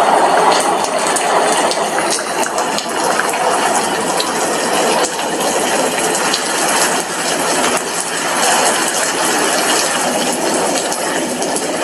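Rain falling steadily, with drops striking a glass window: a dense, even hiss scattered with many small ticks.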